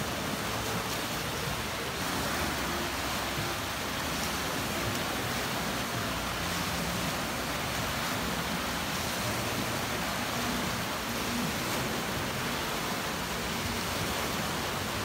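Waves in a wave pool rolling in and breaking, a steady wash of surf.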